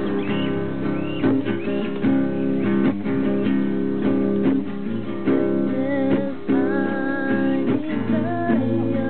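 Acoustic guitar strummed in steady chords. A higher melody line with pitch bends comes in over it about six seconds in.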